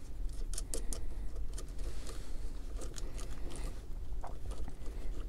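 Light, irregular clicks and rattles of small metal parts: crimped ring terminals on red cables being fitted together on a terminal stud, and a nut being started on it by hand.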